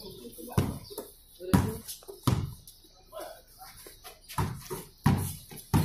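A basketball bouncing on a hard concrete court, about six thuds at uneven intervals.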